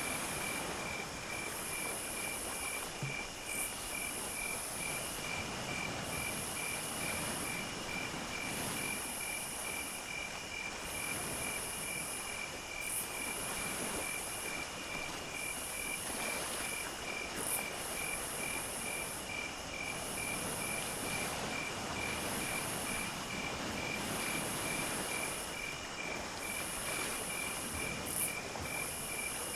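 Chorus of crickets and other insects: one keeps up an even pulsing chirp about twice a second, while a higher trill comes in repeated phrases about a second and a half long. A soft, steady hiss runs underneath.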